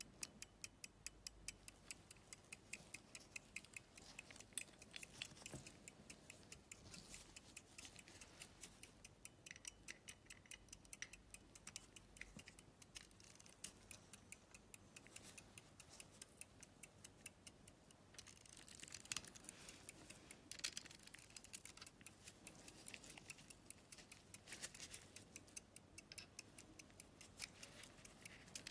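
Antique verge fusee pocket watch movement ticking quietly at an even beat of about five ticks a second, showing it is running. About two-thirds through, louder irregular clicking and rubbing from the watch key being handled on the winding square joins in.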